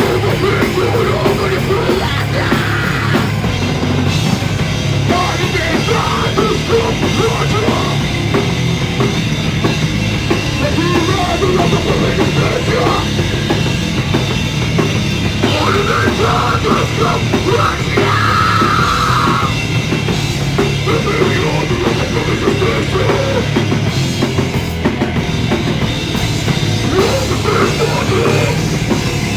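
Underground punk/hardcore rock band playing a song live at full volume, loud and without a break: drum kit, electric guitar and bass. The band was recorded on a mobile phone.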